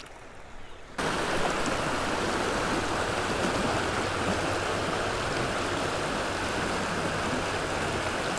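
Creek water rushing over rocks in a shallow riffle, a steady rush that comes in suddenly about a second in after a quieter moment.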